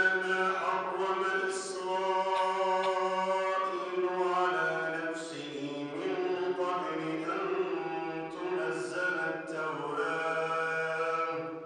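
A man chants solo and unaccompanied in an Arabic religious melodic style: long, ornamented held notes with a few brief breaks for breath. The chant fades out near the end.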